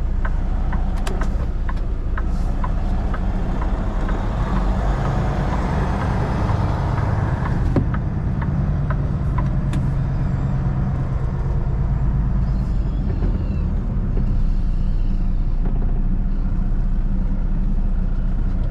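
Semi truck's diesel engine running at low speed while the truck is manoeuvred into a parking spot, heard from the cab. Scattered clicks sound over the first few seconds, and a rushing hiss builds from about four seconds in and cuts off suddenly about eight seconds in.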